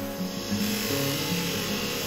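Background music with a steady hiss of a motor-driven polishing wheel running underneath it from about half a second in.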